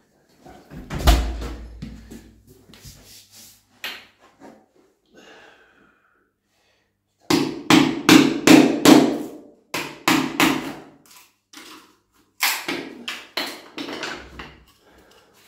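Sharp wooden knocks on a parquet floor, hammer-like blows: one heavy knock with a low thud about a second in, then two quick runs of several knocks, a few a second, in the second half.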